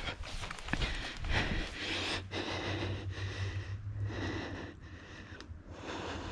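A person breathing heavily and unevenly, several breaths in a row, close to the microphone.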